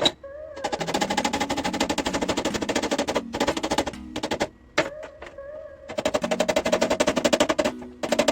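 A power tool rattling rapidly against the car door's sheet metal during rust repair, in two long bursts with a short pause between them.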